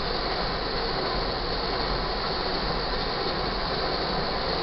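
Tank cars of a crude oil freight train rolling steadily past: continuous noise of steel wheels running on the rails.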